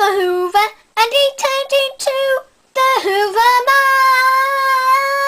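A child singing in a high voice: several short sung phrases, then one long held note that starts a little past halfway through.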